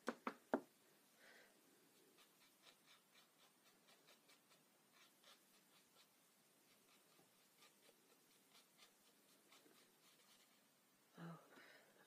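Faint tapping and light scratchy brushing of a small paintbrush and tissue on paper card: three sharp taps at the start, then scattered soft ticks and rubbing.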